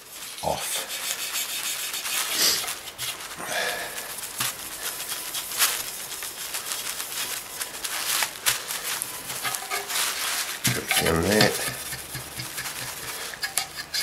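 Hand scrubbing on a Kirby vacuum's oxidised aluminium motor hood: a continuous scratchy rubbing that comes in irregular strokes as the corrosion is worked off with metal polish. A short voiced sound breaks in about eleven seconds in.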